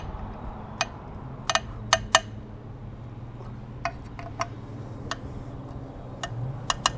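Light metallic clicks and clinks, about a dozen at uneven intervals, as button-head bolts and a hex driver knock against a metal bash plate while the bolts are fitted. A low steady hum runs underneath.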